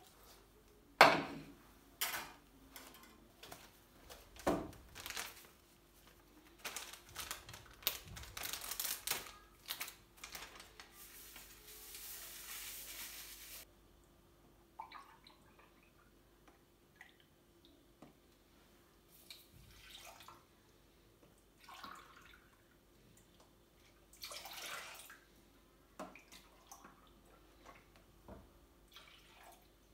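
Household handling sounds: scattered clinks and knocks of dishes and objects being set down, with water running for about three seconds near the middle.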